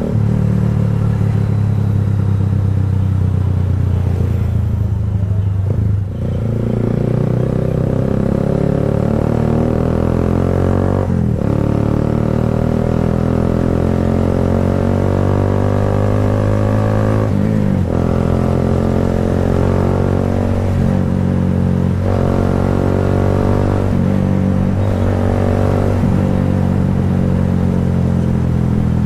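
Kawasaki Rouser 180's single-cylinder engine running through an Akrapovic slip-on muffler: a steady, loud exhaust note that dips and picks up again several times.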